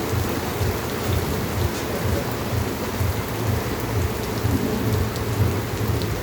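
Heavy rain falling on a city street: a steady hiss of rain with a constant low rumble underneath.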